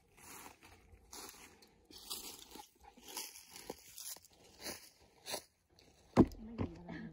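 Footsteps crunching and rustling through dry fallen leaves on a woodland floor, irregular short crunches over several seconds. Near the end a single loud knock.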